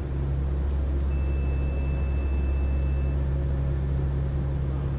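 Steady low drone of an aircraft's engines heard from inside the cabin. A thin, steady high beep sounds for about two seconds partway through.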